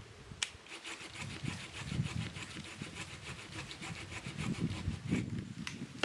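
Wood being cut with a hand saw: a steady run of rasping saw strokes, with a sharp crack just after the start.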